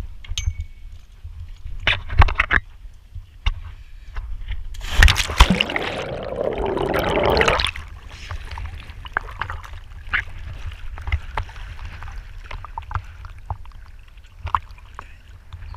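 Water sloshing and lapping at an action camera held at the surface beside a sailboat's hull, with scattered small knocks and clicks. About five seconds in comes a louder stretch of splashing and gurgling lasting a couple of seconds.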